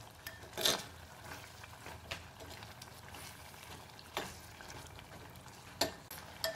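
A steel spoon stirring chicken in thick masala in a clay pot, with about five short taps and scrapes of the spoon against the pot over a faint steady sizzle.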